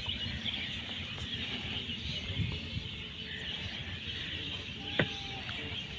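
Outdoor ambience of a steady, high-pitched chorus of wild creatures over a low rumble, with one sharp click about five seconds in.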